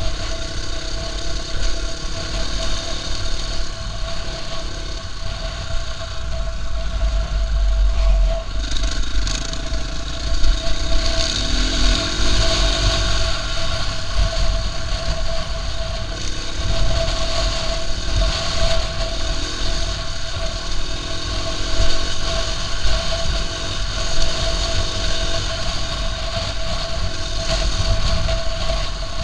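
KTM EXC-F 450 trail bike's single-cylinder four-stroke engine running while riding, its note rising and falling as the throttle varies.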